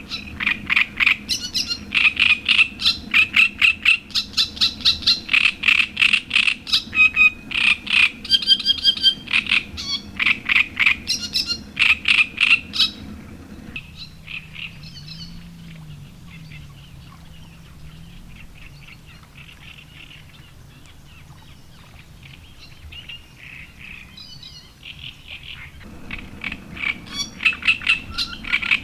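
Frogs calling in a fast run of loud, evenly repeated pulses that stop about halfway through and start again near the end. Faint bird chirps fill the quieter stretch between.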